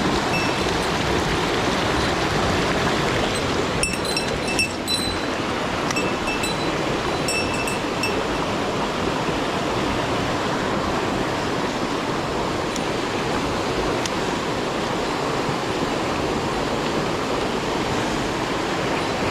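Rushing water of a mountain headwater stream, a steady even rush. A few brief high-pitched tones cut through about four to eight seconds in.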